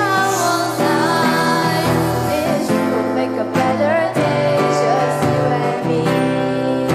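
A song: a young girl singing, accompanied by acoustic guitar.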